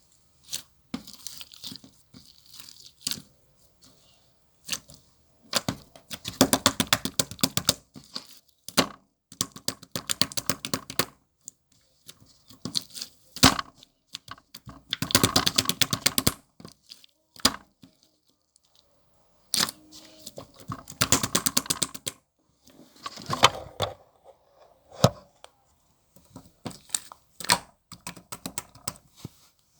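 Slime mixed with white shaving foam being squished, in bursts of dense crackling and popping bubbles that each last a second or two, with a few sharper single clicks between them.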